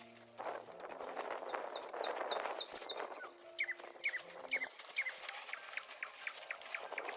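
A bird's short, high chirps, repeated in quick series, over a rustling hiss.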